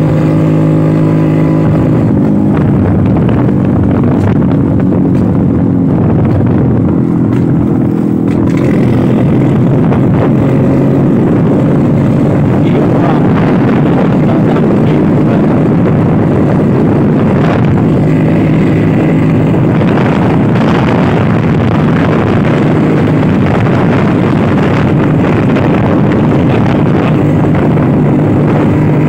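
Vintage Vespa scooter's two-stroke engine running steadily under way. From about two seconds in, a dense rushing noise covers the engine's hum, which comes through clearly again near the end.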